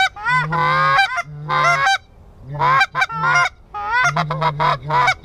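Hand-held Canada goose call blown in loud runs of honks and clucks, each run about a second long with short gaps between.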